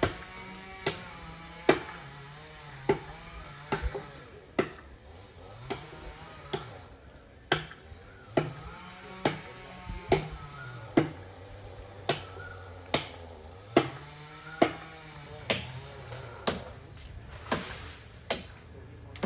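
Repeated chopping strikes on wood, a sharp blow roughly once a second in a steady rhythm, over a fainter drone that rises and falls in pitch.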